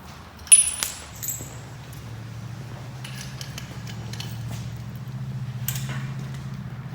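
A sharp metallic clank with a brief high ring about half a second in, like a hose's metal fitting set down on metal, followed by a lighter knock. Then a steady low hum that slowly grows louder.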